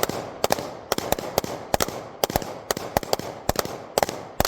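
Rapid string of gunshots from two guns fired at the same time, the shots mostly landing in close pairs several times a second, each with a short echo.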